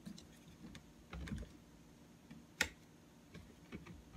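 Scattered small plastic clicks and knocks of a phone being fitted into the spring-clamp phone holder on a Hemmotop tripod head, with a dull knock just past a second in and a sharper click about two and a half seconds in.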